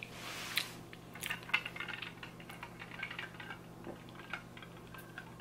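A Starbucks reusable plastic cold cup handled and sipped from through its straw: a faint hiss at first, then a scattered run of small plastic clicks and taps. A faint steady low hum runs underneath.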